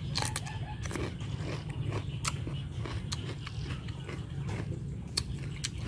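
Mouth biting and chewing a slice of raw cucumber, with crisp crunches at irregular intervals over a steady low hum.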